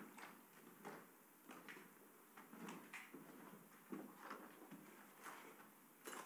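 Faint, irregular footsteps with the rustle of plastic raincoats as people walk in slowly.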